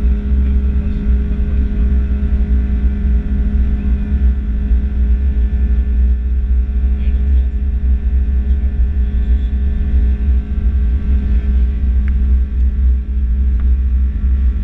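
Airbus A330-300 jet engines running steadily: a heavy low rumble with a few steady whining tones over it.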